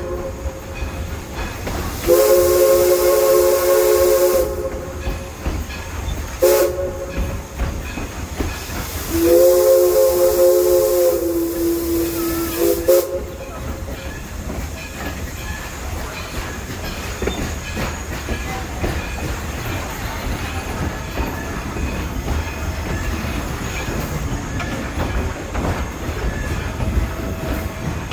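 Steam locomotive's three-note chime whistle, with steam hissing at each blast: the tail of a blast, then a long blast, a short toot and a final long blast that sags in pitch as it shuts off, the long-long-short-long grade-crossing signal. After it, the train runs on with a steady rumble and rail clatter.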